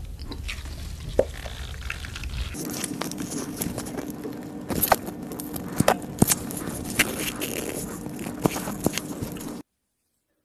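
Plastic squeeze bottle of Buldak hot sauce being squeezed out over food, with crackling and many sharp clicks, most of them in the second half. The sound cuts off suddenly about a second before the end.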